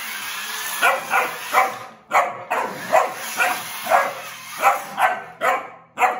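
Labrador puppy barking repeatedly: about a dozen short barks, roughly two a second, starting about a second in.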